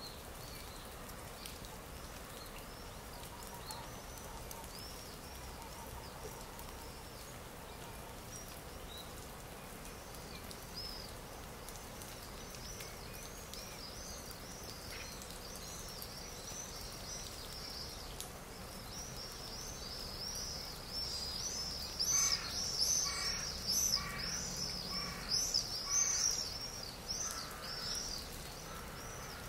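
Many small birds chirping and twittering over a steady background hiss, from a looped stock nature-sounds track. The chirping grows denser and louder about two-thirds of the way through, with a run of evenly repeated lower calls from another bird near the end.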